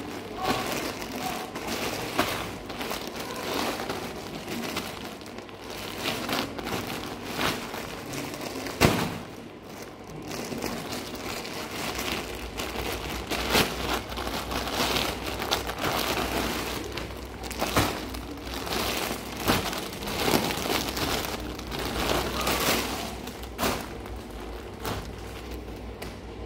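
Plastic courier mailer bag being handled and torn open, a busy crinkling rustle with many sharp crackles and one loud crack about nine seconds in. A low steady hum comes in about twelve seconds in.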